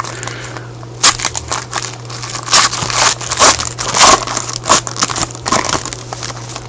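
Crinkling and crackling of a trading-card pack wrapper being handled and opened, a run of sharp crackles with the loudest near the middle, over a steady low hum.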